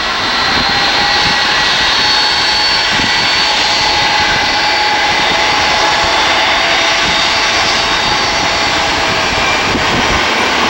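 Boeing 757-300's Rolls-Royce RB211 turbofans running at low power as the airliner taxis onto the runway: a steady jet rush with a thin high whine over it.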